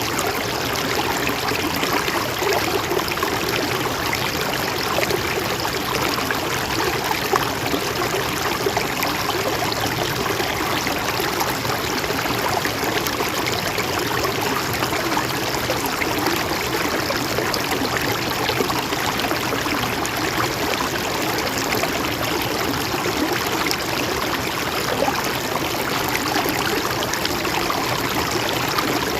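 Mountain stream flowing steadily over rocks, a continuous rush of running water.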